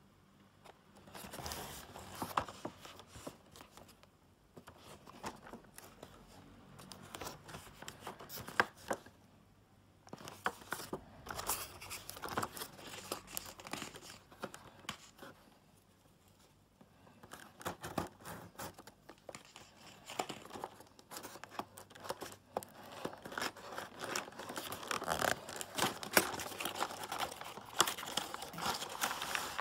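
Cardboard box and clear plastic packaging of a toy train being handled and opened by hand: irregular rustling, crinkling and scraping with a few sharp clicks, in spells separated by short pauses.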